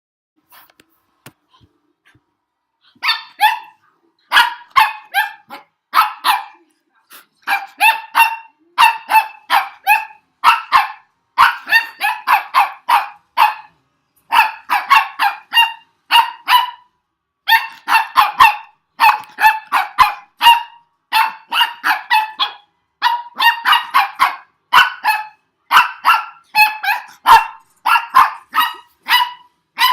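A puppy barking over and over, short high barks in quick runs of a few at a time, starting about three seconds in and keeping on throughout, in an excited reaction to a strange noise.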